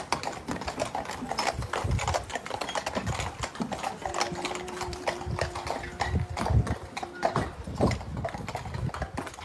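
Horse hooves clip-clopping: a run of uneven, sharp knocks. A faint steady tone sounds for about three seconds midway.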